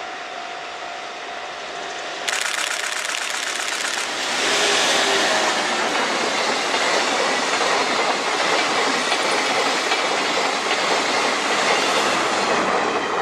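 Locomotive-hauled sleeper express train passing close by on the main line: a loud rush of wheels on rail with a rapid clickety-clack. It starts suddenly about two seconds in and grows louder about two seconds later.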